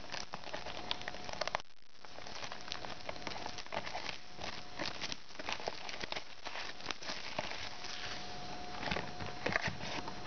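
Foil wrapper of a 2016-17 Studio basketball card pack crinkling and tearing as it is opened by hand, followed by the cards being slid out and handled, a rapid run of small crackles and clicks.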